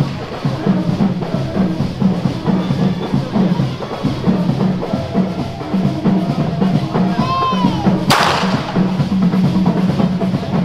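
Carnival skin-group (groupe à po) drumming: an ensemble of skin drums beating a steady, driving rhythm. A single sharp crack sounds a little after eight seconds in.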